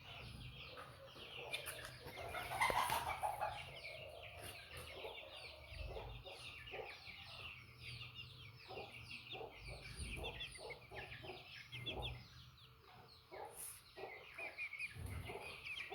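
Hens clucking in short repeated notes over a dense, continuous chatter of high chirps, with a louder burst of calls about three seconds in.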